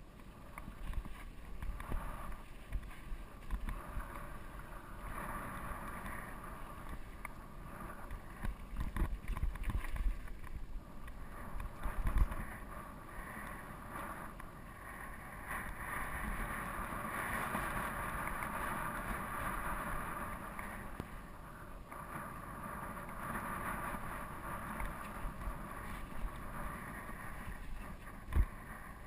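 Steel hardtail mountain bike rolling fast over a rutted dirt trail: tyres crunching on the dirt and the bike rattling over bumps, with wind on the microphone. A sharp knock about twelve seconds in and another near the end as it hits bumps.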